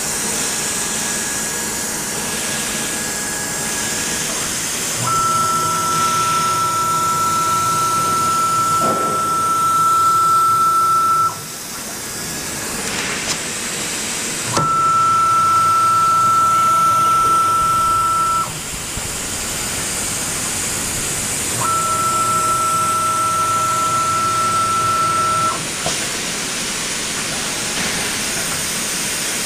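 AccTek ABM1325C CNC router with an automatic tool changer running over a constant hiss. A high-pitched steady machine whine cuts in and out three times, each spell lasting about four to six seconds.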